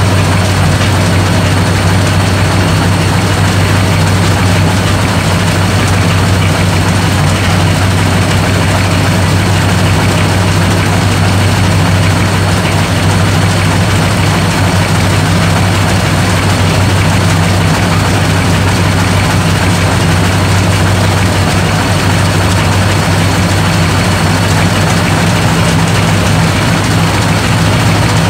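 Large antique tractor engine running steadily after a cold start, a deep even drone with no change in speed.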